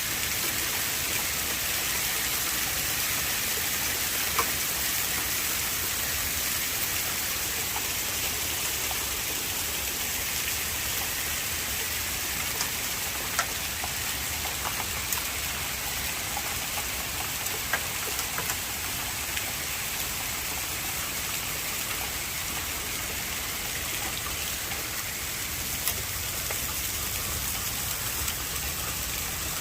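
Steady heavy rain hissing on a surface, with a handful of scattered sharp ticks of impacts, about five across the stretch.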